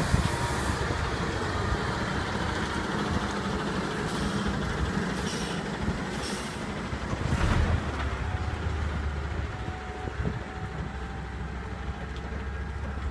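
Heavy diesel engine running with a steady low rumble, broken by a few short hisses of air.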